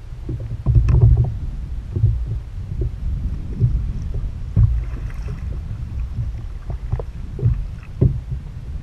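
Double-bladed paddle strokes splashing into the sea as a kayak is paddled, a splash every second or so, over a constant low rumble of water and hull.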